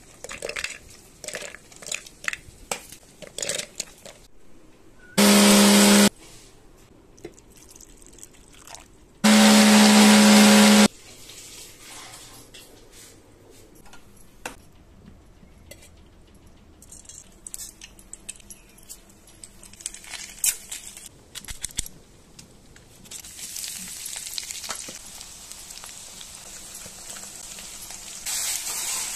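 Electric mixer grinder running in two short pulses, about a second and then a second and a half long, with a steady high hum; before them come a few light clicks and knocks. Later, oil sizzles steadily as onions fry in a pan.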